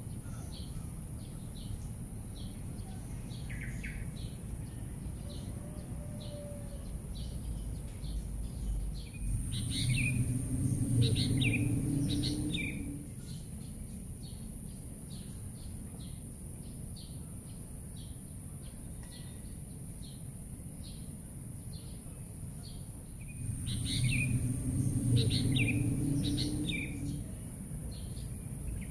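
Birds chirping at dawn, short high chirps repeating about twice a second over a steady high hum. Twice a low rumble swells for a few seconds, together with louder, fuller bird calls.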